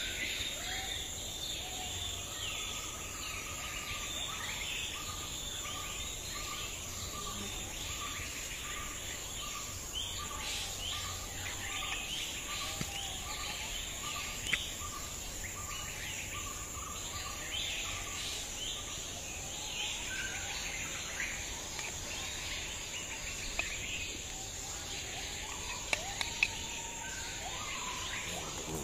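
Outdoor rural ambience: a steady high insect drone with many birds chirping, and one bird repeating a short note about twice a second through the first half. A few sharp clicks from the metal spoon against the bowl and grill stand out, once near the middle and a few times near the end.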